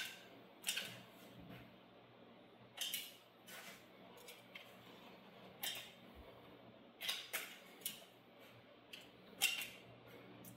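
Light clicks and clacks of cabinet parts being handled during assembly, about eight or nine sharp ones at uneven intervals, some with a short ring, over a faint steady hum.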